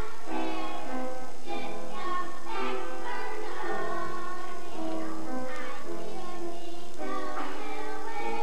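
Young girls singing a song together.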